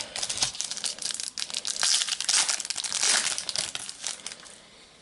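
Foil wrapper of a Panini Adrenalyn XL trading-card packet crinkling and crackling as it is opened and the cards are pulled out; the crackle fades away near the end.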